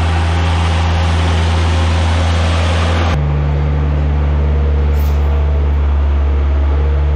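Bobcat skid-steer's diesel engine running steadily with a deep low drone. About three seconds in the sound cuts abruptly to a different steady low machine hum.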